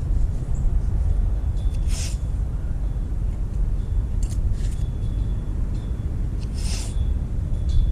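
Steady low rumble of wind buffeting the microphone, with a few short rasping sounds of masking tape being pulled from the roll and pressed on, about two seconds in and again near seven seconds.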